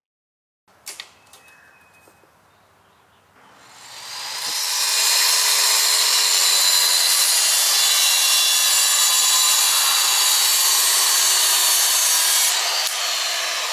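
Handheld circular saw cutting through a board. A faint click about a second in, then the cutting noise swells up over a second or so and holds steady and loud. Near the end it eases off as the saw's pitch drops.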